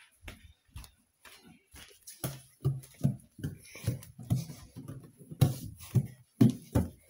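A run of soft, irregular thumps with some rustling, sparse at first and then about two or three a second from about two seconds in.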